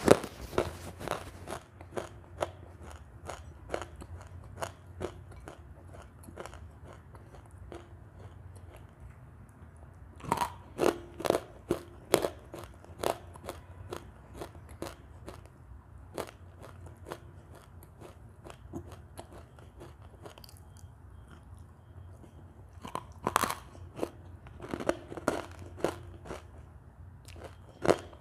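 Close-miked crunching and chewing of dry white Turkistan clay. Sharp, crackly bites come in clusters, at the start, about ten seconds in and again about twenty-three seconds in, with quieter, sparser crunching between.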